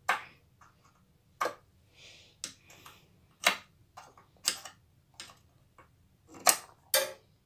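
Spark igniter on a gas stove clicking over and over, roughly once a second, some clicks sharper than others. The burner does not catch.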